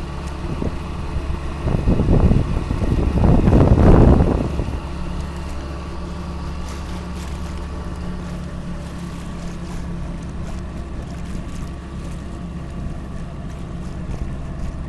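A small boat's engine running steadily under way. About two seconds in, a louder rushing surge of wind or water noise builds for a couple of seconds and fades.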